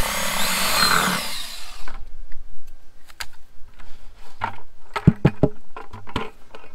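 Cordless drill boring a 3/8-inch drain hole through the side of a plastic 5-gallon bucket, stopping about two seconds in. Then scattered knocks and clicks as the plastic bucket is handled and turned.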